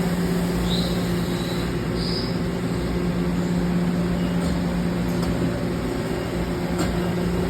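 Steady hum of CNC shop machinery running, with a constant low drone and a faint high whine twice in the first two seconds.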